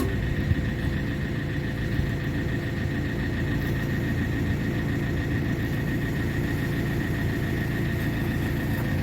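Tractor engine running steadily to drive a hydraulic log splitter, with a thin, steady high tone over the engine rumble.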